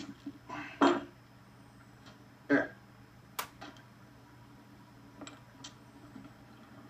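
A glass beer bottle being opened and handled: the cap coming off at the start and just before a second in, then a few scattered clinks and light knocks of the bottle, one sharp click about three and a half seconds in.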